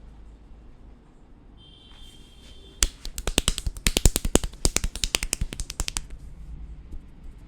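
Barber's scissors clicking rapidly, a fast run of sharp snips at about eight a second. It starts about three seconds in and lasts about three seconds.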